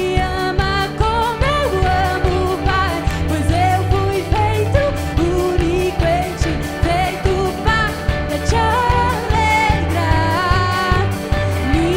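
Live worship song: a singer's voice carries the melody over a band with bass and drums keeping a steady beat.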